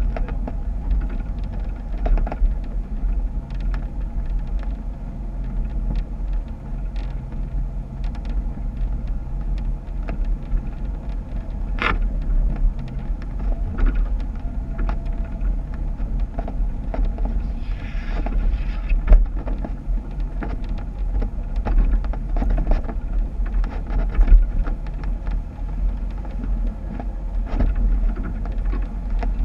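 Jeep engine running at low speed while off-roading, over a steady low rumble, with scattered clicks and knocks throughout and a sharp one about twelve seconds in.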